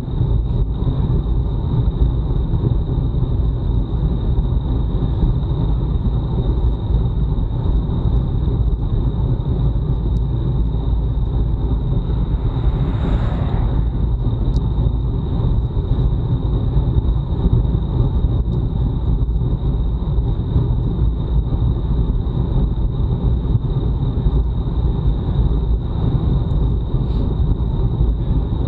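Wind buffeting a bike-mounted action camera's microphone at time-trial speed: a loud, steady low rumble, with a thin steady high tone above it. A brief swelling hiss rises and falls about halfway through.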